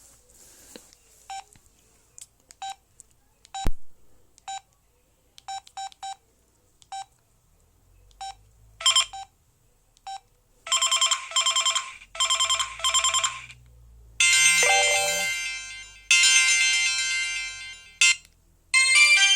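Samsung SGH-E900 mobile phone playing its built-in tones: first a scatter of short single beeps with a click among them, then pulsed buzzy tones, then chiming tone clips, with a ringtone melody starting near the end.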